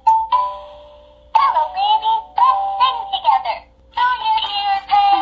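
Flappy the Elephant singing plush toy set off by a press on its foot: a short electronic beep, then, about a second and a half in, it sings in a synthetic electronic voice, phrase after phrase with short breaks between.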